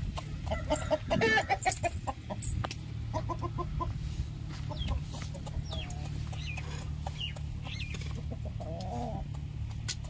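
Aseel rooster clucking in short calls, a louder run about a second in and a quick string of four clucks a couple of seconds later, with sharp clicks of its beak pecking grain in a steel feed bowl. A steady low hum runs underneath.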